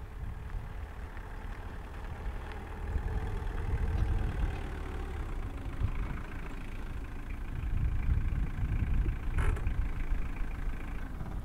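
A small van's engine running as it drives past, a steady low rumble that grows louder in the second half. One short sharp sound about nine and a half seconds in.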